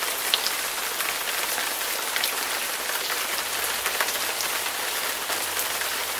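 Steady rain-like hiss sprinkled with small light ticks.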